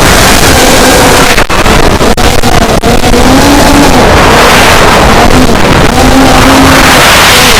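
Brushless motors of an FPV racing quadcopter (Racerstar 2205 2300KV, KingKong 5040 three-blade props) whining loudly, rising and falling in pitch with the throttle, over heavy wind and prop-wash noise on the onboard camera's microphone. The sound dips briefly a few times between about one and three seconds in.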